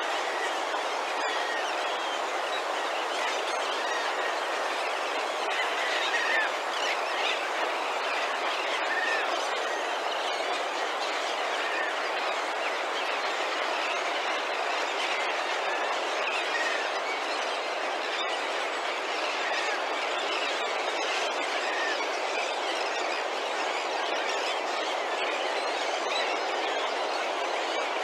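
A large flock of seabirds calling at once: many overlapping calls merge into a steady din, with a few single calls standing out here and there.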